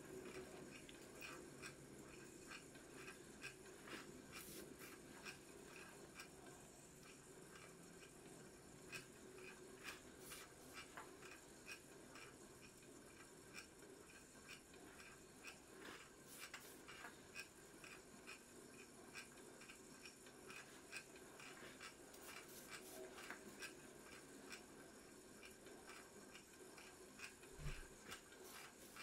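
Quiet hand work at a leatherworking bench: a faint steady hum with light ticks and taps as alligator-leather strips are handled and fed through a small bench machine. A single soft knock comes near the end.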